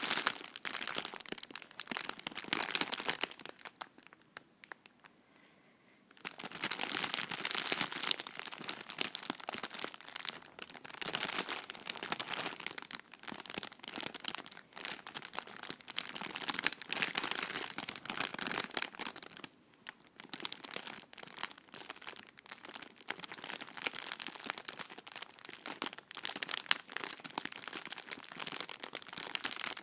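A plastic Haribo sweets bag crinkled and scrunched by hand, making a dense, crisp crackling. The crackling stops for about two seconds a few seconds in, and breaks off again briefly about two-thirds of the way through.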